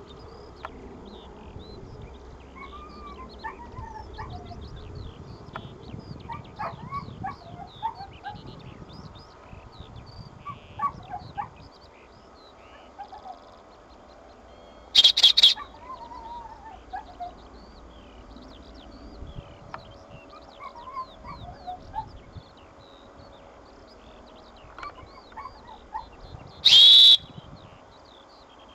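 Small birds chirping and twittering steadily over open fields, with two loud, high whistle blasts about twelve seconds apart, the second near the end.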